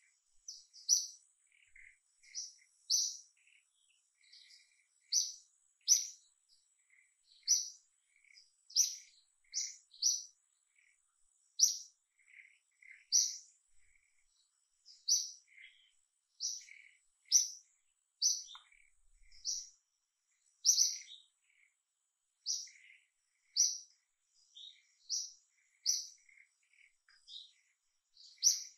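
A small bird calling over and over, with short high chirps about once a second and softer lower notes between them. A faint steady high tone runs behind.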